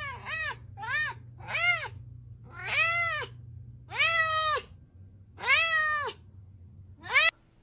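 Domestic cat meowing repeatedly, about eight meows, the first few short and quick and the later ones longer and drawn out, each rising then falling in pitch.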